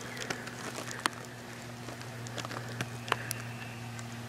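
Scattered sharp clicks and light crackles, loudest near the start and about three seconds in, over a steady low hum.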